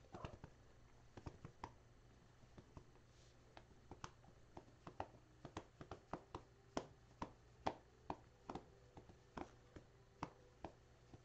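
Faint, irregular clicking and tapping, a few clicks a second, over a low room hum; the clicks come thicker and louder through the middle and thin out near the end.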